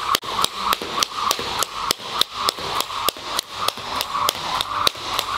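Skipping rope slapping a hardwood floor on each turn during continuous jumping: a steady, even rhythm of sharp taps, about three a second.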